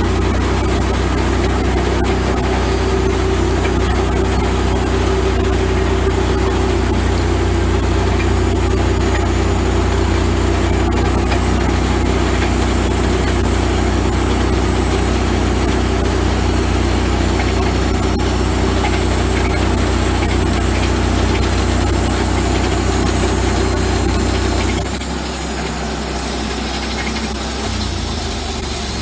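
Wood-Mizer LX150 bandsaw sawmill running steadily with its engine working through a cut. About 25 seconds in, the deep engine hum drops away and a higher hiss comes up.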